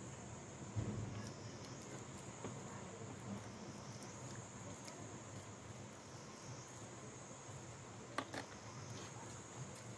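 Faint steady high-pitched hiss or chirring, with a soft thump about a second in and a couple of sharp clicks near the end.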